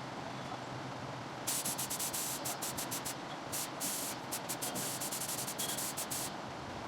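A pneumatic tool firing a quick series of short bursts of hissing air, about five a second, starting about a second and a half in and stopping shortly before the end, over a steady low background noise.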